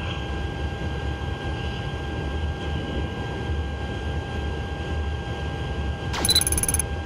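Boeing 777-300ER flight-deck noise in descent: a steady rush of airflow and low rumble with a faint steady hum. About six seconds in, a short high-pitched electronic sound cuts through briefly.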